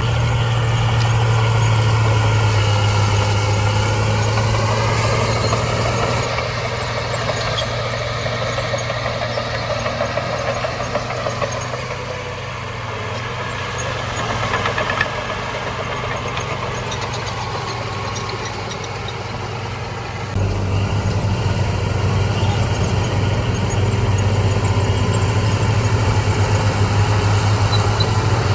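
Diesel engine of heavy earthmoving machinery running steadily under a deep, continuous hum, its pitch rising briefly a few seconds in. The tone and level change abruptly about six seconds in and again about twenty seconds in.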